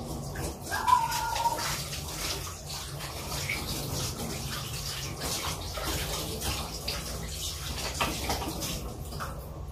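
Vegetables in coconut milk bubbling and simmering under the lid of a covered wok: a steady, crackling bubbling hiss. A short sharp clink about a second in is the loudest moment.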